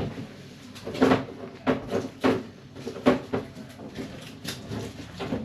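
Irregular wooden knocks and clatters, about seven over a few seconds, from laminate flooring boards being handled and knocked into place.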